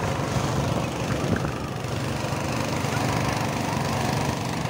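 Small river boat's motor running steadily at cruising speed, an even low drone.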